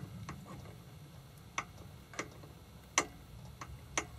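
Light metal-on-metal clicks as a piston and its wrist pin are handled and fitted onto the connecting rod of a Honda PA50II moped engine. About six irregular clicks, the sharpest about three seconds in.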